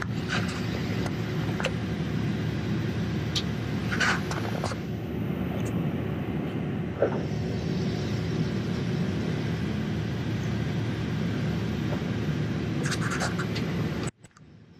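Cabin-side rumble of a Boeing 767-300ER taxiing on engine power, steady and low, with a few light clicks and rattles. About 14 seconds in, the sound cuts out abruptly to near silence.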